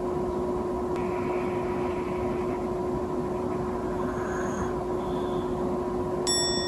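Steady hiss with a constant low hum of room background noise. Just before the end, a bright ringing tone with overtones comes in.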